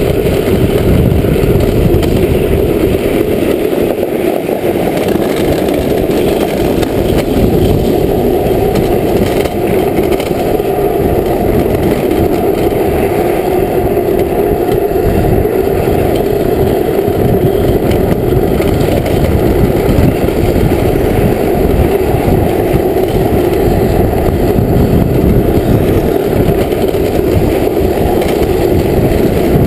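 Steady, loud rolling rumble of an engineless drift trike coasting fast downhill, its wheels running on asphalt, with wind on the camera microphone.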